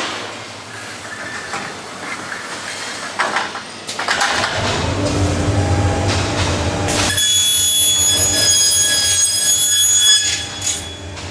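Automatic CNC machine for aluminium mosquito-net frame profiles running, with knocks and clatter in the first few seconds. From about four seconds in there is a low rumble. About seven seconds in a steady high-pitched whine of several tones joins it, loudest, and stops near the end.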